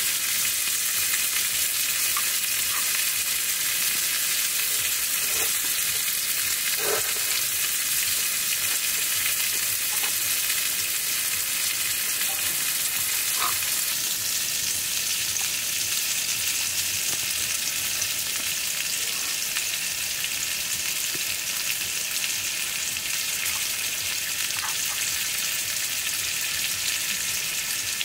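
Skewered chicken thigh pieces sizzling on a small grill plate over a portable gas burner: a steady frying hiss with a few faint pops.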